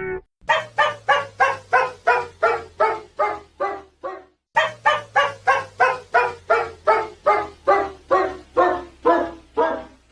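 A dog barking fast and evenly, about three to four barks a second, in two long runs with a short break about four seconds in. It is a stock cartoon sound effect.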